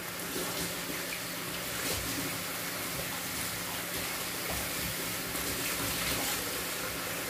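Pork pieces simmering in a thin sauce in a frying pan, the sauce bubbling and sizzling steadily.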